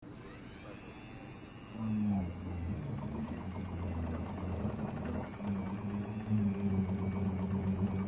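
A handheld rotary tool starts whirring about two seconds in, spinning a small model four-stroke engine over by its crankshaft with a steady hum and a regular light ticking. The engine is being turned over without firing to test its gearless, ratchet-driven exhaust-valve mechanism.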